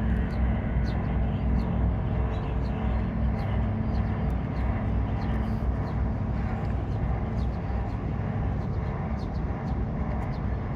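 Sado Kisen ferry's engines running under way with a steady low throbbing rumble and a constant hum.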